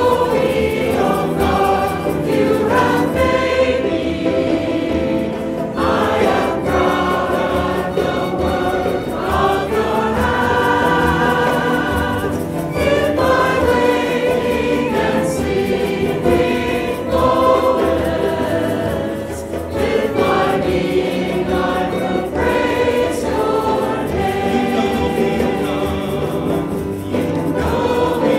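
A choir singing a Christian praise hymn, one continuous sung verse without a break.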